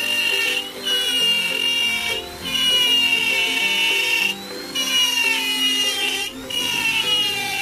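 Electric power tool motor whining in runs of one to two seconds with short breaks, its pitch sagging as it takes load near the end, over background music.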